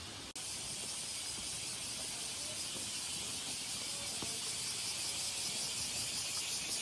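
Steady high-pitched shrilling of summer cicadas with a fine pulsing texture, starting right after a brief dropout about a third of a second in.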